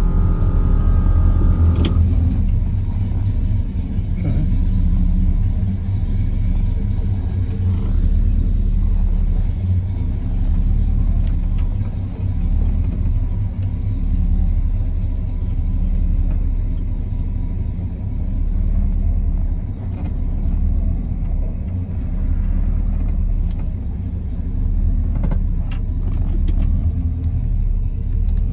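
1967 Pontiac GTO's V8 engine and road noise heard from inside the cabin while driving: a steady low rumble that swells and eases gently.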